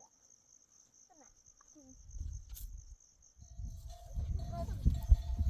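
Insects, crickets by the tags, trilling in one steady high note that stops about three and a half seconds in, with a few faint short calls. From about two seconds a low rumbling noise on the microphone builds and grows louder toward the end.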